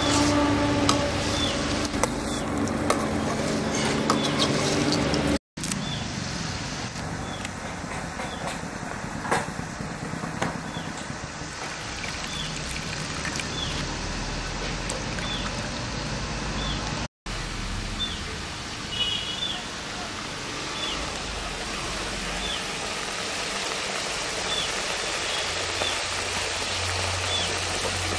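Thoothuvalai (Solanum trilobatum) leaves frying in a pan with a steady sizzle as they are stirred. They are being sautéed only lightly so that they keep their colour and don't darken.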